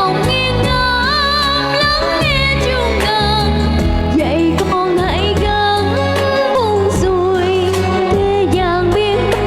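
A young girl singing a Vietnamese song with wavering, vibrato-laden held notes over a full instrumental backing track.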